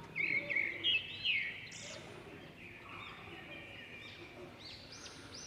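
Small birds chirping in the background: a quick run of short high chirps in the first second and a half, then fainter scattered chirps over a low hiss.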